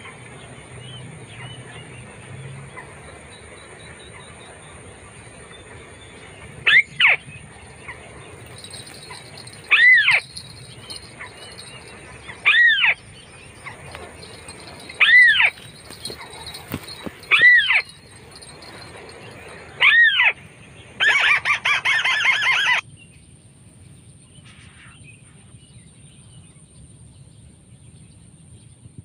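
White-browed crake calls: six short rising-and-falling notes, about one every two and a half seconds, then a loud rapid chattering run lasting about two seconds.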